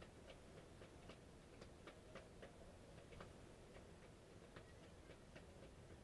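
Faint, soft clicks of a deck of tarot cards being shuffled by hand, irregular at about three or four a second, over quiet room tone.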